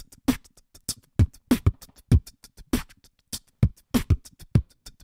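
Beatboxed drum beat: deep mouth kicks alternating with short, hissy hi-hat and snare sounds in a steady groove.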